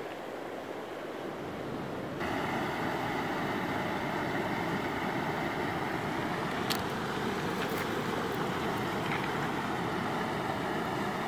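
Steady rushing of shallow creek water over gravel, stepping up louder about two seconds in, with a sharp click about seven seconds in and a couple of fainter ones after.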